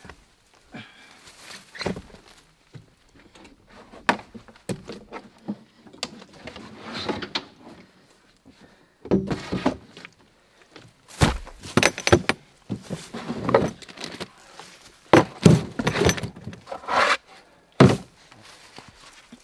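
Gear being handled on a pickup's flatbed: a plastic hard case lifted and set down, with irregular thunks, knocks and clatter, loudest and busiest in the second half.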